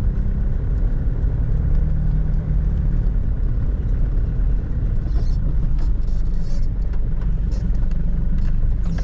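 Toyota Hilux's 3.0-litre 5L four-cylinder diesel running while driving, a steady low rumble heard from inside the cab together with road noise. A few short clicks come in over the last few seconds.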